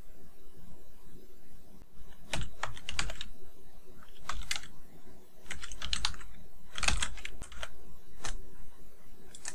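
Typing on a computer keyboard: quick runs of keystrokes in several short clusters, starting about two seconds in and stopping shortly before the end.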